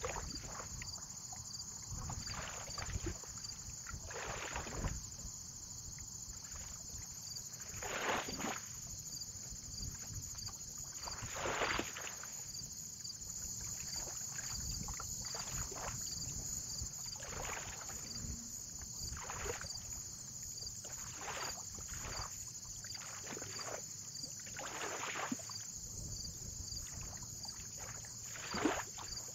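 Small waves lapping at the water's edge: soft, irregular splashes every second or few, over a low rumble of wind.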